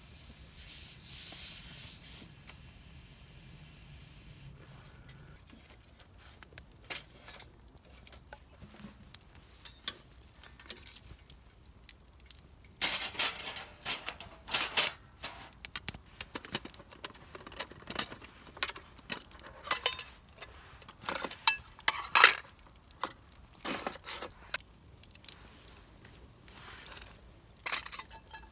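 Metal camp gear clinking and clattering as it is handled: scattered sharp clinks at first, then a busy run of knocks and clinks from about halfway in.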